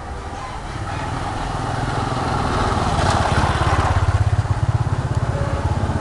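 A small engine running close by, growing louder over the first few seconds, then holding a rapid, even throb.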